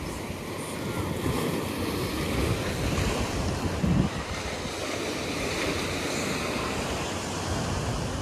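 Ocean surf washing and breaking against the jetty's rocks, with wind buffeting the microphone in a steady low rumble; a brief louder gust or thump comes about four seconds in.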